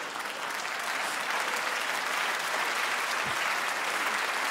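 Live audience applauding with dense, steady clapping after a punchline.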